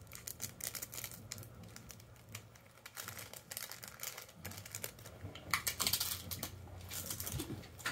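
Foil snack packet crinkling and tearing as it is handled and opened. Irregular clusters of crackles, busiest near the start and again in the second half.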